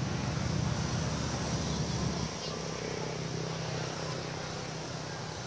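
A steady low engine hum over outdoor background hiss, easing slightly about two seconds in.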